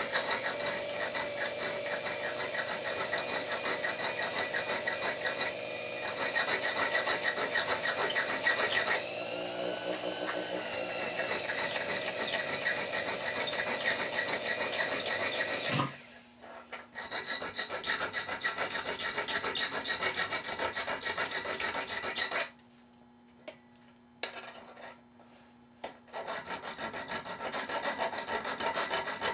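Coarse file scraping on a freshly fitted clock pivot wire as the wheel's arbor spins in a small lathe, filing the new pivot down to length. The filing breaks off briefly about 16 seconds in and largely stops about 22 seconds in, leaving a steady low hum with a few short scrapes.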